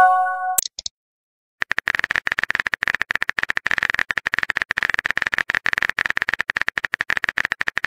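Texting-app sound effects: a short bright chime right at the start, then after a brief pause a fast, steady run of phone-keyboard key clicks as a message is typed out.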